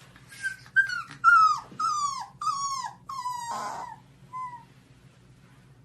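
A dog whining: a run of about six high, drawn-out whines in quick succession, each sliding down in pitch, then one faint short whine.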